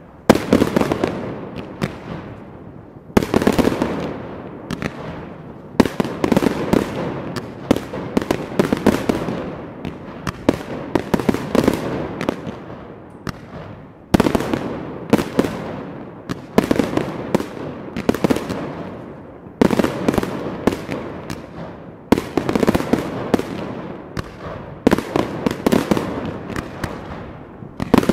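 Fireworks display: volleys of sharp bangs and crackling, a new volley starting every two to three seconds and each dying away before the next.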